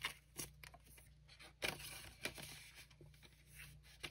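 Faint crinkling and rustling of a small stack of Canadian polymer banknotes being bent and slid into a binder envelope pocket, with scattered light crackles and a longer rustle around the middle.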